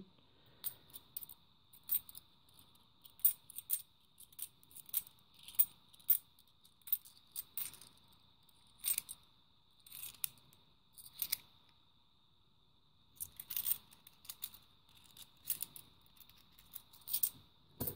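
Handful of 50p coins clinking against one another as they are shuffled and turned over in the hands: irregular sharp metallic clicks, one brief pause past the middle.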